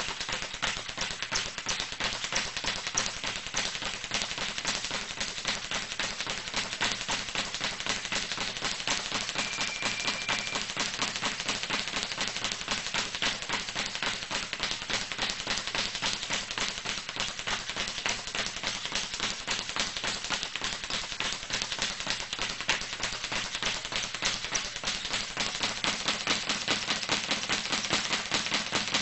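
Boxing training: a rapid, steady rattle of short taps and blows, many a second, running without a break.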